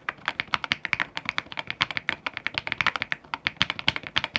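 Rapid typing on a mechanical keyboard's stock plastic keycaps: a quick, uneven run of sharp key clacks, several a second.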